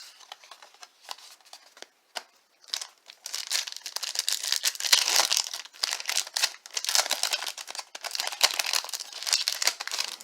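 A baseball card pack wrapper being torn open and crinkled in the hands, a dense crackling that starts about three seconds in. Before it come a few light clicks of cards being handled.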